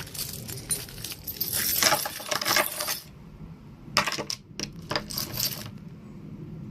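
A bunch of keys on a keyring jangling as it is handled: a long run of clinks over the first three seconds, then two shorter shakes about four and five seconds in.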